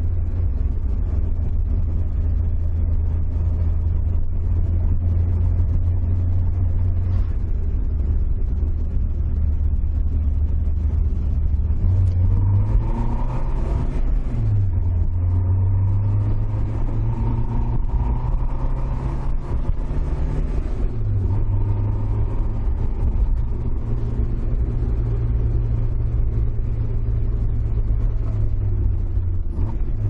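Toyota AE86's 4A-GE twin-cam four-cylinder engine droning at highway speed with road noise, its pitch rising and falling a few times in the middle as the revs change.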